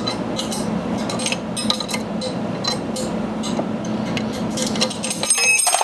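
Small metallic clicks and clinks as an oil catch can's drain fitting is worked by hand over a catch container, over a steady low hum.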